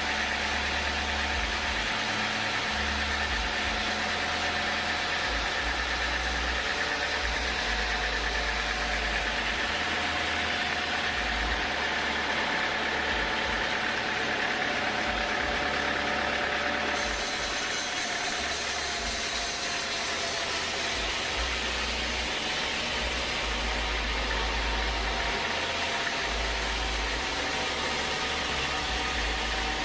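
Sawmill machinery running steadily: a continuous mechanical drone with a few constant whining tones.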